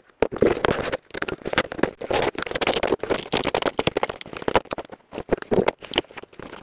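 Hand work on laser-cut wooden box parts: irregular scraping in short bursts with many sharp clicks.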